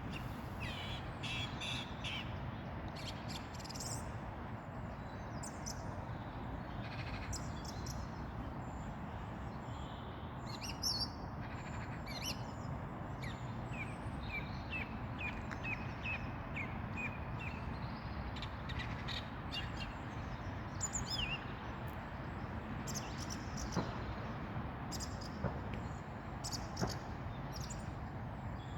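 Evening birdsong: several birds chirping and calling, with a run of quick repeated notes near the middle, over a steady low background rumble.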